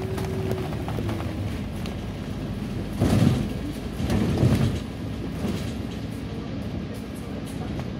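Road and engine rumble heard from inside a moving vehicle, with two louder low surges about three and four seconds in.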